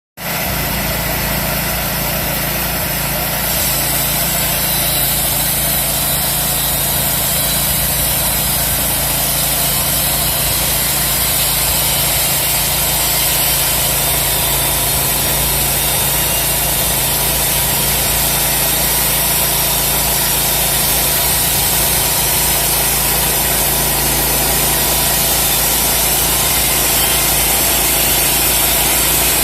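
Engine of a homemade portable bandsaw mill running steadily, with a slight change in its note about three and a half seconds in.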